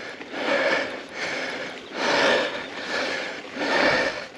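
Mountain biker panting hard while pedalling up a climb, a heavy breath roughly every second: out of breath early in the riding season.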